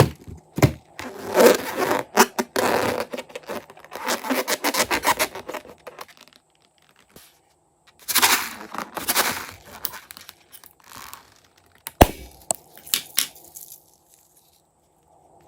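Slime-making handling sounds: irregular bursts of crinkling, tearing and sticky crackling, with a few sharp clicks about twelve seconds in.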